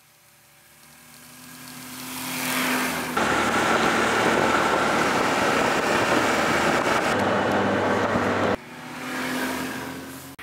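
Snowmobile engines: one grows louder as it approaches over the first few seconds. Then comes a loud, steady run heard from on board. Near the end another snowmobile towing a sled passes close by, its sound rising and falling away.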